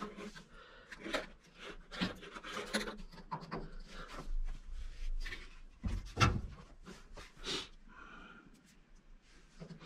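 Handling noises as a new plastic washing-machine drain hose is fitted: scraping, rubbing and light clicks, with a duller knock about six seconds in.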